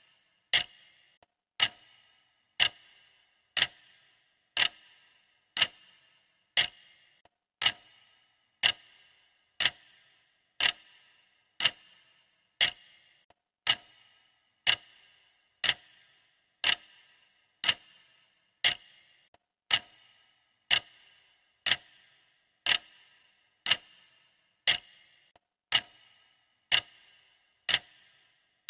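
Clock ticking steadily, a sharp tick about once a second.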